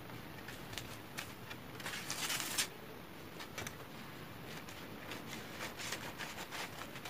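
Scissors snipping through stiff chart paper, with scattered short crisp clicks and rustles of the paper, and a louder brushing swish of paper about two seconds in.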